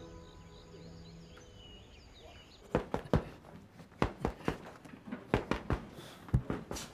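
A punching bag being hit repeatedly with fists: a quick, uneven series of dull thuds, about three a second, starting about two and a half seconds in.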